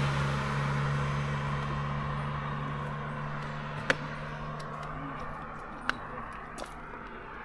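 A vehicle engine's steady low hum fading away over about six seconds, with two sharp clicks about two seconds apart.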